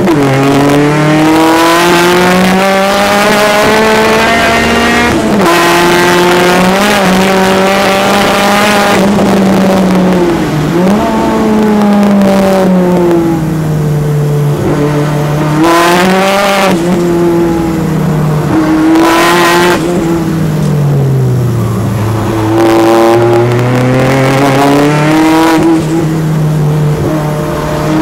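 Turbocharged Peugeot 205 16v engine heard from inside the car at racing speed, its pitch climbing under acceleration and dropping back at gear changes and under braking, several times over.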